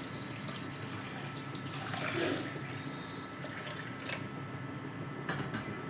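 Water pouring steadily into a cooking pot, with a couple of faint clicks in the second half.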